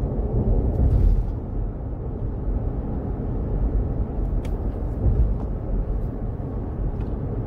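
Low, steady rumble of a 2019 GMC Yukon's V8 engine and road noise heard inside the cabin, driving with the foot eased off the throttle. The engine is misfiring on cylinder 5 at light throttle, which the mechanic leans toward blaming on the fuel injectors.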